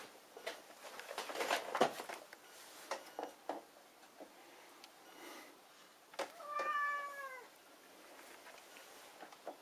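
Burmilla cat giving one drawn-out meow about two-thirds of the way in, its pitch sinking slightly at the end. Before it come rustling and a few soft knocks.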